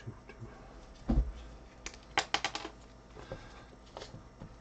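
Small things handled on a tabletop: scattered light clicks and taps, one dull thump about a second in, and a quick run of sharp clicks a little after two seconds.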